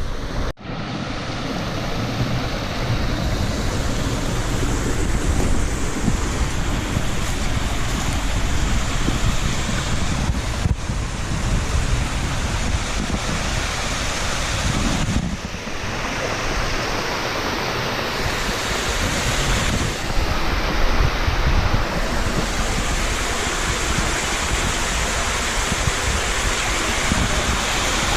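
Spring-fed waterfall rushing steadily, a dense even roar, with low wind rumble on the microphone. The sound breaks off briefly a few times.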